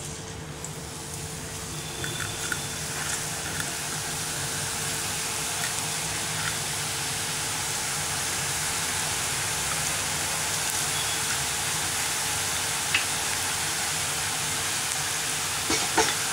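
Strips of ribbon pakoda dough deep-frying in hot oil: a steady sizzle that builds over the first few seconds as the dough goes in, then holds, with a few faint clicks.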